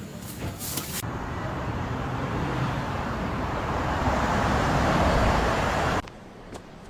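Scissors cutting through a thick ponytail: a few sharp snips, then a long crunching noise that swells louder for about five seconds and stops suddenly, followed by a few faint clicks.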